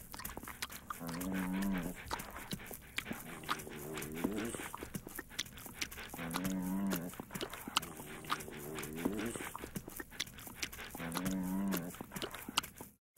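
A bulldog giving about five low, warbling, moan-like calls two to three seconds apart, with wet licking clicks between them.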